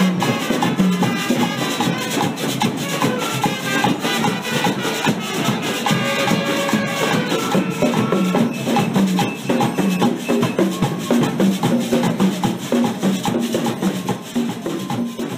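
Street marching band playing: drums and hand percussion keep a fast, steady beat under a melody.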